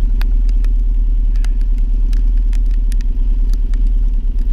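Motorcycle engine idling steadily under heavy wind rumble on the microphone, with scattered sharp clicks close by.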